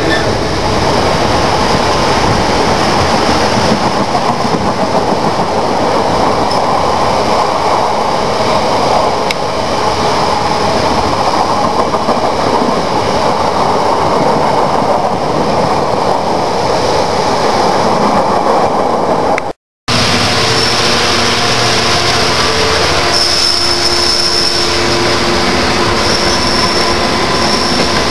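Freight train wagons rolling past close by, a steady loud rumble and rattle of wheels on rail. A short dropout comes about 20 seconds in, after which the passing wagons carry a steady thin high-pitched wheel squeal.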